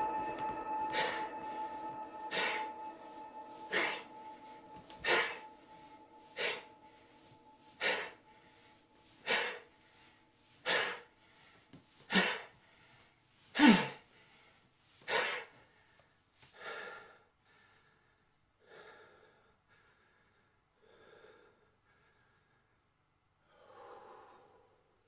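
A man out of breath, letting out loud, sharp gasping breaths about once every second and a half; near the end they grow weaker and further apart.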